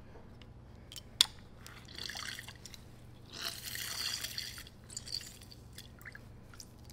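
Lemons being juiced by hand, with juice dripping and squirting in two short spells, and one sharp click about a second in.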